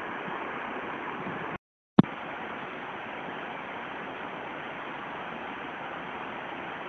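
Steady rain falling, an even hiss. About a second and a half in it drops out for a moment and comes back with a sharp click where the recording cuts.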